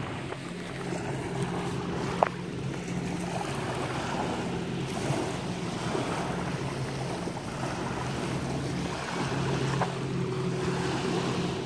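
Wind on the microphone and small lake waves lapping at the shore, with a low steady hum that fades in and out like a distant motorboat. A short squeak comes about two seconds in, and another near the end.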